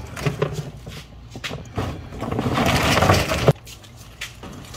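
Charcoal briquettes poured into a grill's metal firebox, clattering and tumbling onto each other. A short rattle comes just after the start, then a longer, heavier pour from about two seconds in that stops abruptly.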